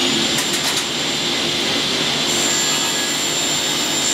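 Table saw motor and blade running steadily at full speed with a high whine, just after spinning up.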